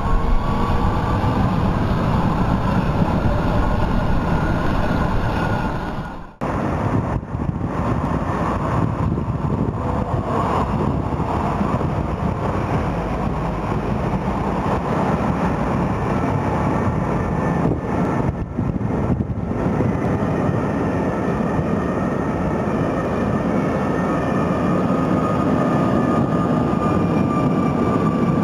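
CarGoTram freight tram running on street track: a steady rumble of wheels on the rails with a faint whine from its electric drive that rises at first. The sound breaks off briefly about six seconds in; near the end a second, slowly falling whine runs under the rumble.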